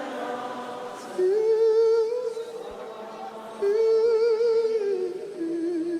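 Singing voices in a worship song, holding long notes with vibrato. There are two louder sustained notes, then a lower note near the end.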